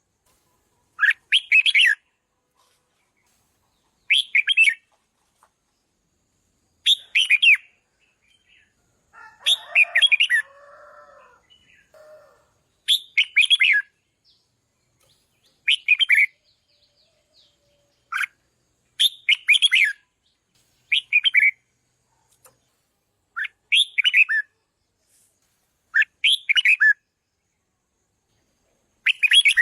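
Red-whiskered bulbul singing short, bright song phrases, about a dozen of them, one every two to three seconds. About nine seconds in, a lower, rougher chatter runs for some three seconds.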